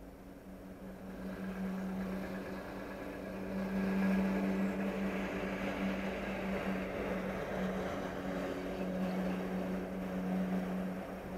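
A large engine running with a steady hum, growing louder over the first few seconds and then holding steady.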